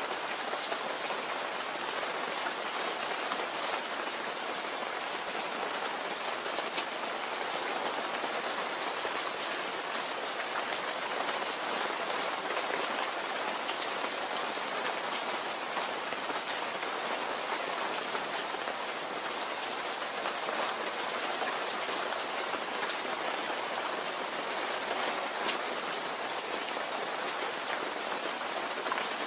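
Steady rain falling, an even hiss with many small droplet taps scattered through it.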